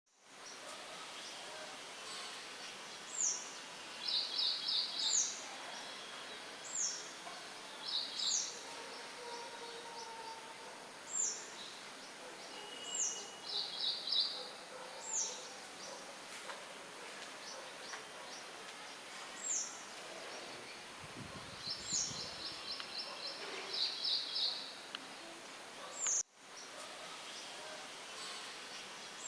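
Wild birds chirping over a steady hiss of wind through leaves. A high call repeats every second or two throughout: a short falling note, then a quick trill of several notes. The sound briefly cuts out about 26 seconds in.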